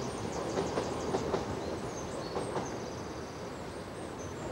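Passenger train running over a railway viaduct: a steady rumble of wheels on track.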